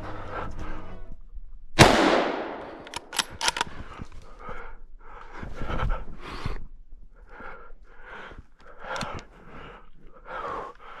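A single rifle shot about two seconds in, echoing as it fades, followed by two sharp clicks and then a run of quick, heavy breaths.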